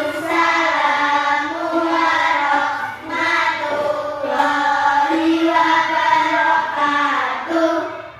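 A class of children singing a song together in unison, in long held notes, with short breaks between phrases about three seconds in and near the end.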